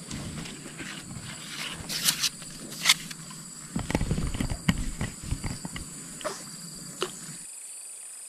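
A steady, high-pitched chorus of insects drones throughout. Over it come close rustling and sharp knocks and clicks of the fishing rod and gear being handled, loudest about two and three seconds in and again around four seconds. Near the end the handling noise stops suddenly, leaving only the insect drone.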